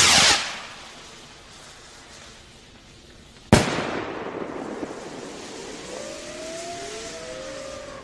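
Whistling fireworks rockets (NICO Europe Sound Rockets). A loud rushing burst opens, a sharp bang comes about three and a half seconds in, and a hiss and several overlapping wavering whistles follow from about six seconds on.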